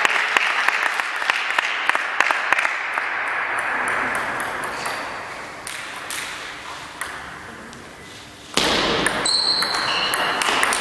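Table tennis ball clicking off bats and the table in a gymnasium hall, over a hiss that fades through the first several seconds. About eight and a half seconds in, the sound jumps louder as a rally starts, with quick ball strikes and a few short high squeaks.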